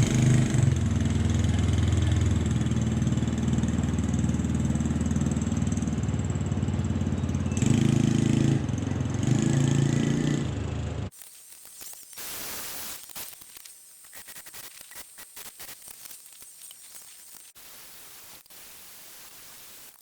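A small gasoline engine running, its pitch and level rising and falling a few times. After about eleven seconds it cuts off abruptly to a much quieter stretch of irregular crackling clicks.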